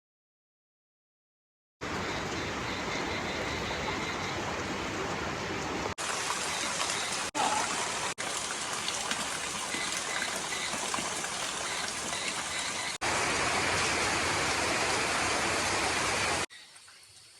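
Steady rushing water noise, starting abruptly about two seconds in and broken by several hard cuts between clips, then stopping suddenly near the end.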